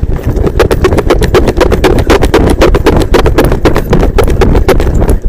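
Running footsteps in a quick, even rhythm of footfalls during a foot chase, with the body-worn camera jostling, over a steady low rumble.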